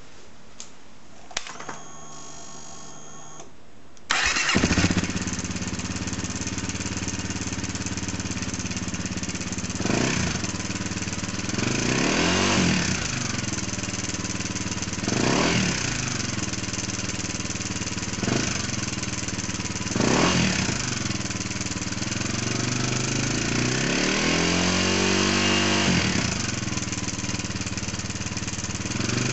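Honda CRF250M single-cylinder engine with a Yoshimura exhaust: after a short whine it starts about four seconds in, idles, and is blipped about six times. At idle and low revs it makes a steady clattering noise that appeared suddenly while riding and goes away for a while once the revs are raised.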